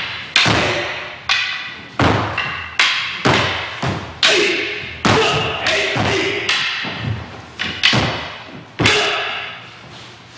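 Wooden practice swords (bokken) clashing in a fast, unbroken exchange of kenjutsu strikes: about a dozen sharp wooden clacks, each ringing briefly, coming every half second to a second and stopping shortly before the end.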